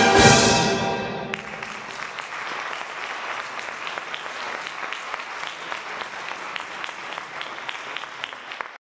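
A concert band's final brass chord ringing out and dying away in a large, echoing hall. It gives way to applause with scattered clapping, which cuts off suddenly near the end.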